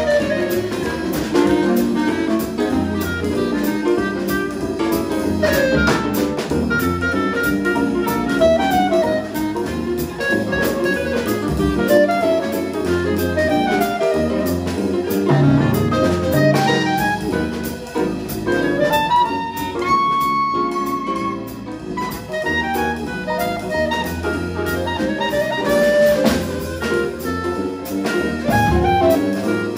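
Live small-band swing jazz: a clarinet leads the melody over grand piano, sousaphone bass, archtop guitar and drum kit, holding one long high note about twenty seconds in.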